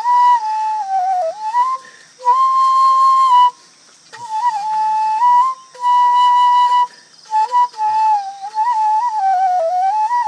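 Solo flute playing a slow melody that moves among a few notes, with two long held high notes and short breaks for breath between phrases.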